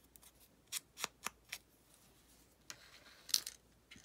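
Faint handling of a small paper piece being rubbed with an ink blending tool: a few short, scratchy strokes in the first half, then a denser bit of rustling about three seconds in.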